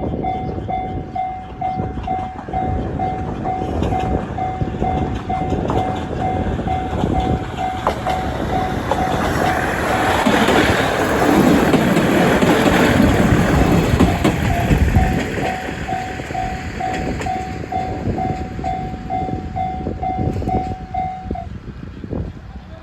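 Level-crossing warning bell ringing in a fast, steady repeating ding while a diesel train passes. The train's rumble swells to its loudest about halfway through and then fades, and the bell stops near the end.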